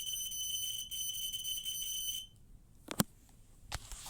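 System Sensor Genesis mini horn sounding a high-pitched electronic tone that sounds like a smoke alarm, cutting off a little over two seconds in. Two sharp clicks follow, the first of them the loudest sound.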